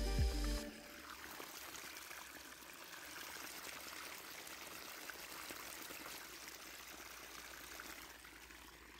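Hot oil sizzling steadily as small suji (semolina) rolls deep-fry in a tiny pan, an even crackling hiss. Background music cuts off just under a second in.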